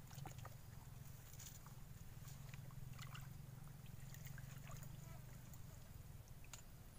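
Faint sloshing and small splashes of shallow water as a person wades in among water weeds, made of many scattered little ticks, over a steady low hum.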